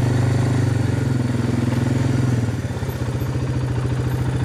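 Four-wheeler (ATV) engine running steadily under way, then easing off to an even, pulsing idle a little over halfway through as the machine comes to a stop.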